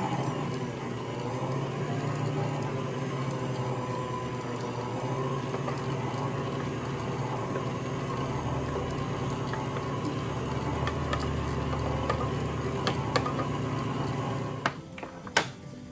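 Hamilton Beach stand mixer running steadily, its wire whisk beating flour into cake batter in the steel bowl. The motor stops near the end, followed by a few sharp clicks.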